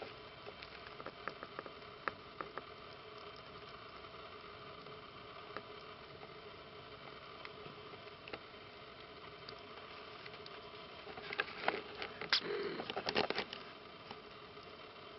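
Light pattering and rustling of three-week-old kittens' paws and claws on fabric bedding, scattered faint ticks at first and a denser burst of scratching and rustling near the end, over a low steady hiss.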